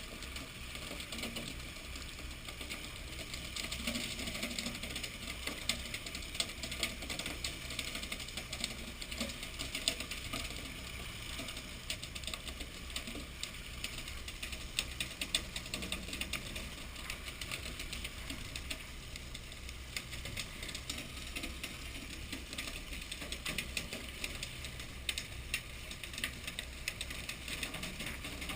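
Fishing boat's engine running with a steady low hum, under a rapid, irregular clatter of sharp clicks and taps.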